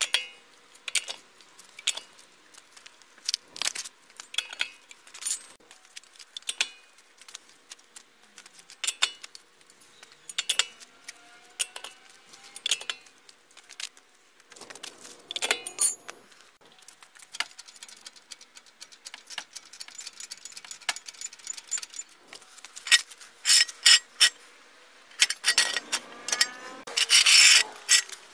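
Scattered metal clicks and clanks of a four-way cross lug wrench working the lug nuts of a Toyota Fortuner's front wheel as the nuts are cracked loose, then near the end a denser run of metallic rattling and scraping as the car is raised onto jack stands.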